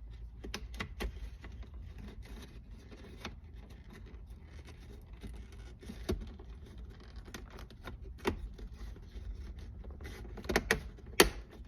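Handling noise of a shifter boot and its trim being fitted back around a newly installed Hurst pistol grip shifter in a car's center console: scattered light clicks, knocks and scrapes. Near the end comes a quick cluster of sharper clicks as the trim is pressed and snapped into place.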